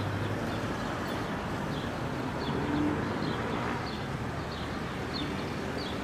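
A small bird chirping over and over, a short high note roughly every half second, over a steady outdoor background hum.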